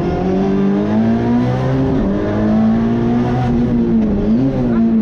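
Citroën C2 R2 rally car's engine heard from inside the cabin, pulling hard on a special stage. Its pitch dips briefly about two seconds in and again about four seconds in, then climbs back each time.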